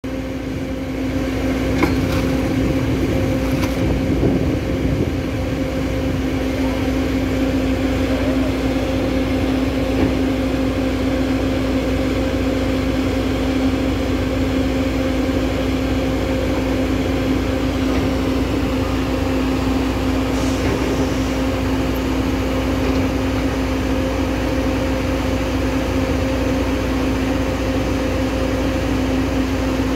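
Komatsu long-reach excavator's diesel engine running at a steady pitch, a constant hum that doesn't rise or fall.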